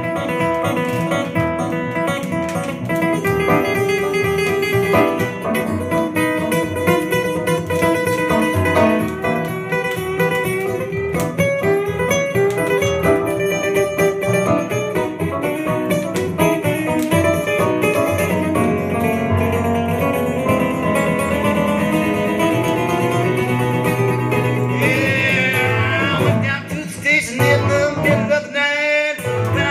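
Live acoustic duo: steady acoustic guitar strumming with an electric keyboard playing chords and melody lines in an instrumental passage. Near the end a male voice comes in singing.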